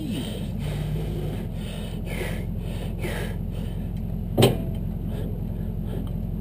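Heavy-equipment engine running steadily, with a single sharp knock about four and a half seconds in.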